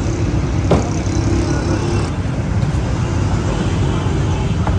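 Steady low rumble of motor vehicles, with a sharp knock about a second in and a fainter one near the end.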